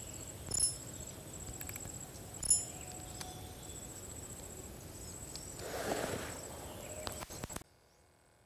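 Outdoor ambience with an insect trilling steadily at a high pitch. Two short high chirps come about half a second and two and a half seconds in, and a brief rustle comes around six seconds. Near the end the sound cuts off suddenly to near silence.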